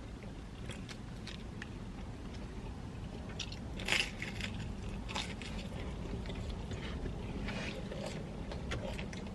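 Someone biting into and chewing a slice of pepperoni pizza: soft mouth and eating noises, with a louder bite about four seconds in, over a steady low background hum.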